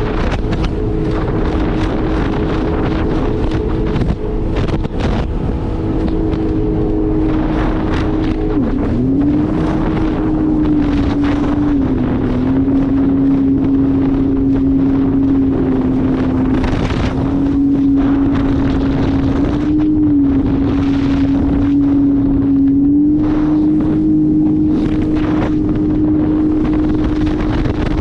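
Jet ski engine running at speed, its pitch dropping and rising a few times as the throttle changes, with wind buffeting the microphone.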